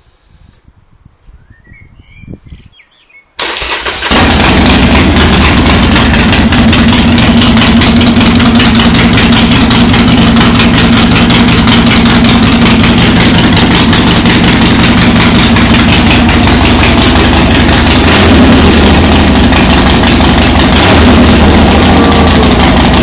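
Harley-Davidson Sportster Forty-Eight's air-cooled 1200 cc V-twin, breathing through Bassani ProStreet exhaust pipes, starting up a few seconds in and then running loud and steady, with a couple of slight swells in the revs near the end.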